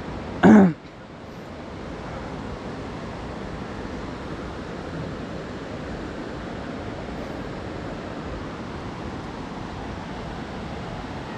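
Steady rush of the Kali river's water flowing past. About half a second in, a short, loud burst of a person's voice.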